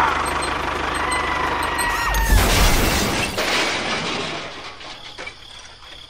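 A steady whistle-like tone for about two seconds, then a sudden loud crash with a deep boom that dies away over the next second or so, as the model tractor and its loaded trolley tip into the sand ditch.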